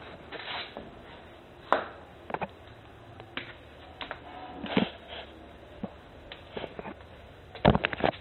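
Footsteps climbing concrete stairs, heard as irregular knocks and scuffs, mixed with bumps from the phone being handled; the loudest cluster comes near the end.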